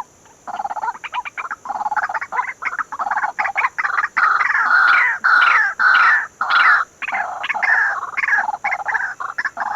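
White-breasted waterhen calling: a loud, repetitive croaking call of rapid short notes, growing loudest in the middle and easing off toward the end.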